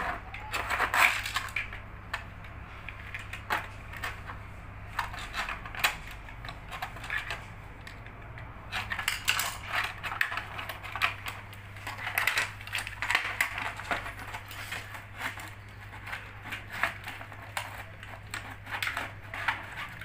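Plastic housing of a Samsung washing machine control panel being pried apart and handled with a screwdriver: irregular clicks, snaps and taps of plastic clips and parts, coming in clusters.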